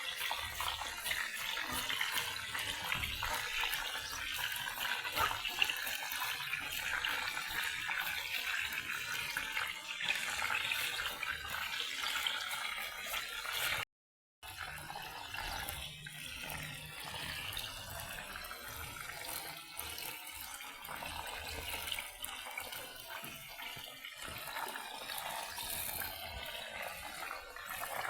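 Water running from a tap in a steady stream, with small knocks and clatter, cutting briefly to silence about halfway through.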